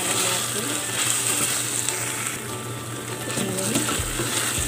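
Zucchini, onion and tomato paste sizzling in a stainless steel pot, with a wooden spoon stirring and scraping through them.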